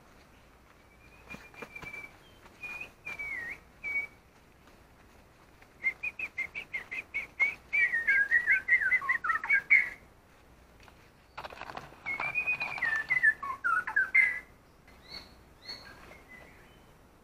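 A songbird singing loud whistled phrases in three bouts, each a run of quick notes that falls in pitch, with a few short higher notes near the end.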